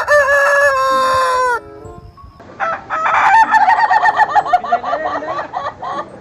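A rooster crows once, a held call of about a second and a half that drops slightly in pitch at the end. About two and a half seconds in, a chicken starts a rapid run of short, choppy repeated calls that lasts some three and a half seconds.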